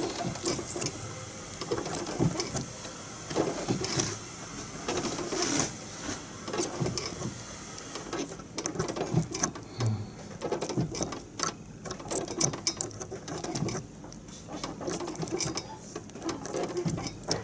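Metal key being pressed and worked into a transparent practice lock's keyway that is packed with chewing gum: irregular small clicks and scraping of the key against the brass cylinder as the gum is forced in to push the pins up.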